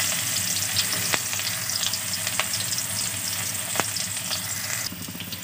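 Chopped onion frying in mustard oil in a karai: a steady sizzle with scattered sharp crackles of spitting oil. The sizzle eases a little near the end.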